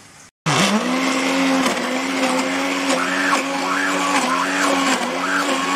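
Electric immersion (stick) blender puréeing fava beans, potatoes and broth into soup in a pot. It starts abruptly about half a second in and runs steadily, its motor pitch dipping briefly a few times.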